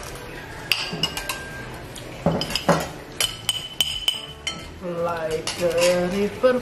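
Metal spoon and fork clinking and scraping against ceramic plates and a glass bowl as the last of the noodles are eaten, a series of sharp clinks, some ringing briefly. Near the end, music with a singing voice comes in.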